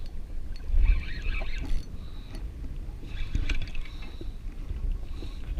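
Water slapping against the hull of a drifting jet ski, with wind gusting on the microphone and scattered small clicks.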